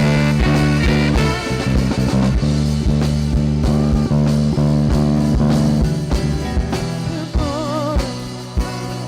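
Live worship band playing an instrumental passage of a praise song: sustained keyboard chords and bass over a steady drum beat. The low bass thins out about two-thirds of the way through, and a short wavering melody line comes in near the end.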